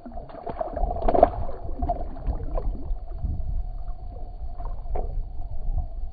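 Water splashing and gurgling beside a boat as a large channel catfish is let go and swims off. There are a few sharp knocks from handling in the first second and a half, then a low rumble of moving water with a faint steady hum underneath.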